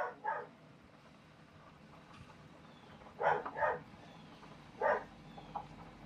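A dog barking, five short barks in all, mostly in quick pairs: two at the start, two about three seconds in, and one near the end.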